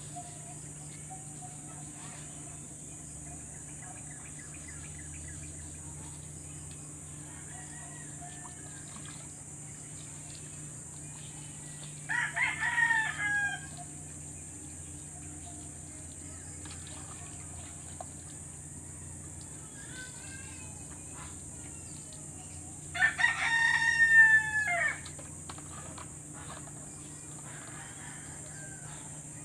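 A rooster crowing twice, once about twelve seconds in and again about ten seconds later, each crow lasting a second or two. A faint steady hum runs underneath.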